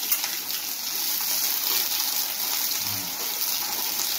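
Chopped scallions sizzling in hot fat in a pan, a steady hiss, while a metal spoon stirs them.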